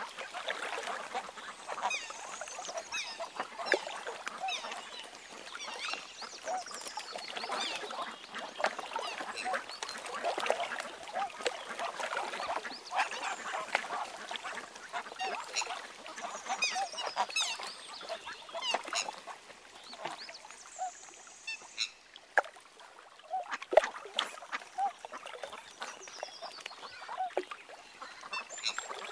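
Mute swans and their cygnets calling on the water: a steady run of short low calls with high thin notes over them, and a sharp click about three-quarters of the way in.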